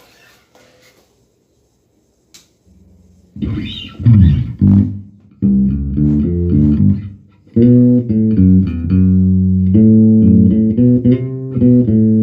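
Electric bass guitar played through a Markbass Little Mark 58R bass amp head, which is working again after its power supply was repaired from overvoltage damage. After a few faint clicks, notes start about three seconds in: a sliding note, then a run of plucked notes.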